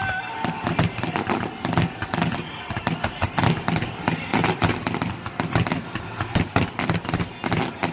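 Fireworks going off in a dense, continuous barrage of bangs and crackling pops, several a second.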